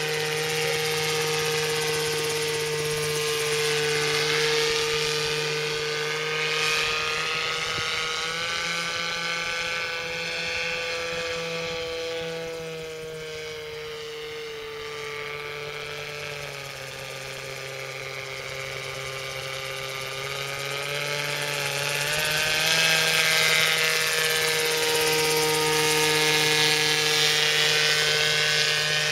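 Radio-controlled model autogyro flying past, its motor and propeller giving a steady droning tone. The pitch drifts up and down a little as the model circles. It fades somewhat in the middle while the gyro is far off and is loudest near the end.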